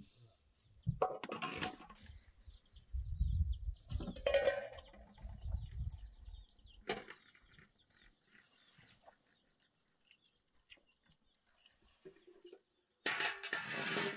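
Hands working dry flour on a cloth and scooping it into a metal basin: soft rustling and scraping with a few scattered knocks, and a louder, dense rustle near the end.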